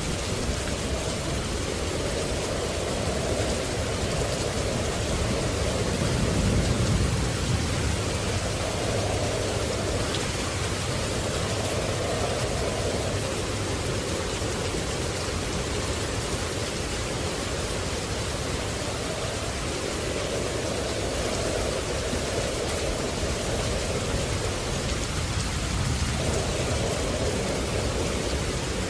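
Steady rain, with a low roll of thunder swelling and fading about six seconds in.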